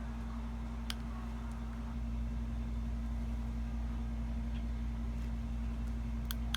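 Steady low rumble of a car with a constant hum, with a couple of faint clicks about a second in and near the end.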